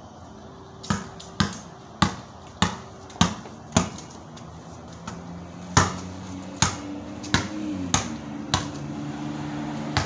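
A series of sharp smacks, one about every 0.6 s, with a short pause in the middle. Under them a passing car's engine grows steadily louder over the second half.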